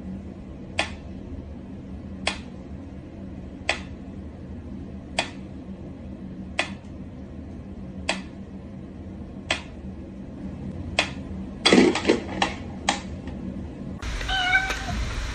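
Kitten mewing, short cries spaced evenly about every second and a half, then several quick mews in a row near the end, over a steady low hum.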